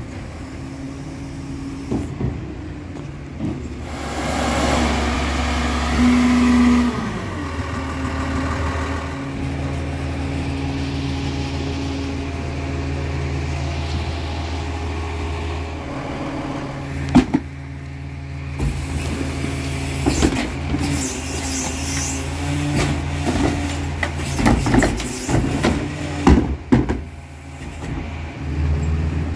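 Peterbilt 348 rear-loader garbage truck's diesel engine rising in pitch as the truck pulls up, then idling steadily. In the second half come a series of clanks and bangs as garbage carts are emptied into the Heil Formula 5000 hopper.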